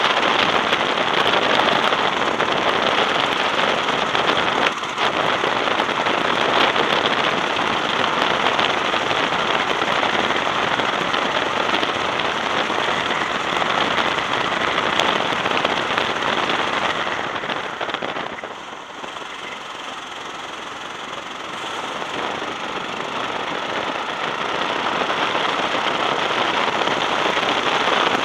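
Onboard sound of a racing go-kart at speed: the kart's engine running hard, with rushing, crackly wind noise on the microphone. The sound dips for a few seconds about two-thirds of the way through, then builds again.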